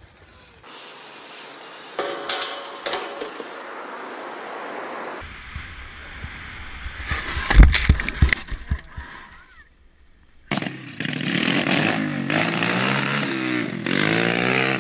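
A small dirt bike's engine revving, its pitch rising and falling over the last four seconds. Before it, a tumbling crash in snow with a low rushing rumble and one loud thump around the middle.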